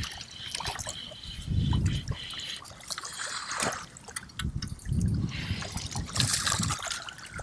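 Water splashing and trickling beside a fishing kayak as two hooked trout are brought up to the boat, with low knocks and rumbles of handling.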